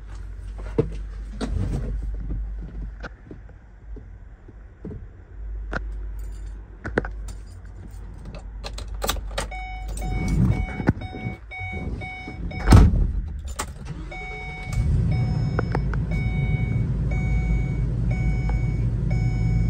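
Keys and cab handling clicks, then a warning chime dinging at a steady pace as the ignition is switched on. Two-thirds of the way through, the Ford E350's 5.4-litre V8 is cranked with a sharp burst and starts, settling into a steady fast idle while the chime keeps dinging over it.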